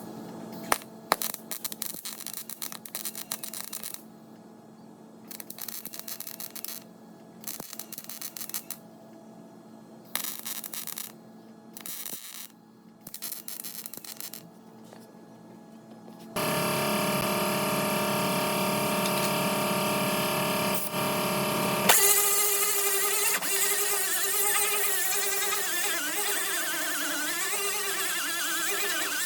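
Short bursts of tack welding on car door sheet metal, each a few seconds of crackle with pauses between. About sixteen seconds in, an angle grinder starts and grinds the welds down, running steadily, its pitch wavering as it bites.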